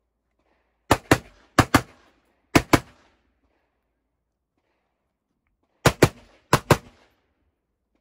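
Gunshots fired in quick pairs (double taps): three pairs in about two seconds, then after a pause of about three seconds two more pairs.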